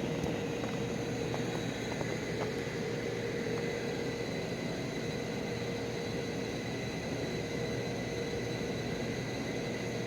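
A steady mechanical hum with a held tone over an even rush of noise, fading out near the end.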